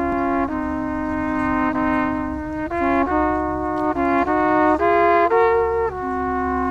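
A duo of Alpine Weisenbläser on brass horns playing a slow folk tune in two-part harmony, with held notes that change together every half second to a second or so.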